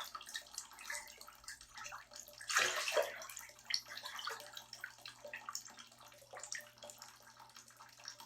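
Bathwater sloshing and lapping in a tub as a person shifts in it, a run of small splashes with one louder splash about two and a half seconds in.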